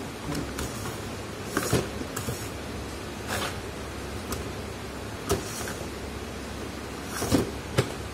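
A few short knocks and clicks of small objects being handled, about six in all, over a steady hiss.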